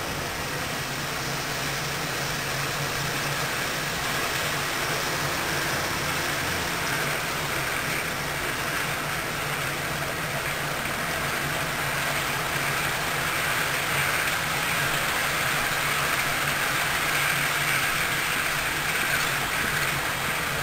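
Steady rumbling noise of a moving train with a low hum underneath, with no beat or distinct clacks.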